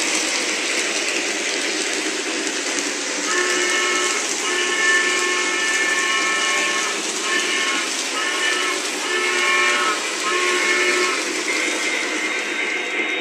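Lionel Junior Mikado 2-8-2 model steam locomotive's RailSounds system giving a steady recorded steam hiss. From a few seconds in, its steam whistle blows about six times, one blast long, over the engine's small onboard speaker.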